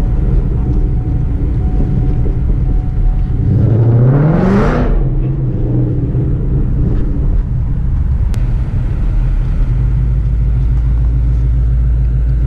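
Ford Mustang GT's V8 running as the car is driven, with one brief rev rising in pitch about four seconds in before dropping back, then running more steadily near the end.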